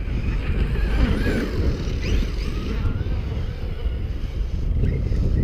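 Wind buffeting the microphone, the loudest sound, with the whine of a Traxxas X-Maxx RC truck's brushless electric motor rising and falling faintly as it drives through snow on the hill.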